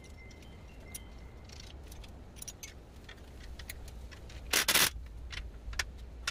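Small metallic clicks and clinks of a bolt, nut and wrench being handled on an aluminium tube frame, with one short burst about two-thirds in from a cordless drill with a socket bit driving the bolt.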